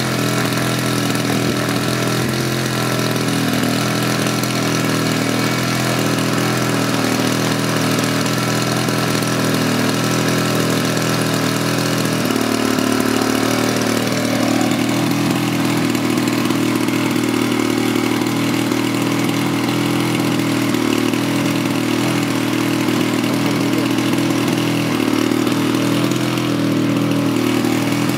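Zenoah ZG62 single-cylinder two-stroke petrol engine of a giant-scale RC Corsair running steadily at low speed on the ground, propeller turning, with a small change in pitch about halfway through.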